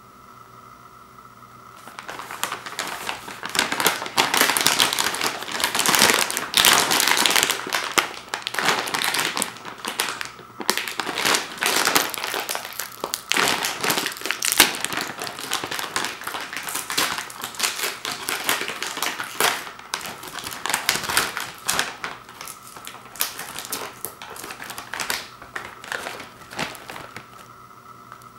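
A plastic tortilla chip bag crinkling as hands handle it and pull it open at the top seam. The crackling is loud and continuous with many sharp crackles, starts about two seconds in and eases off just before the end.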